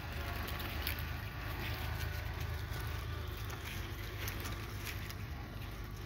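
A flock of sheep crunching and chewing Brussels sprouts, many small crisp clicks and snaps, over the steady low hum of an idling tractor engine.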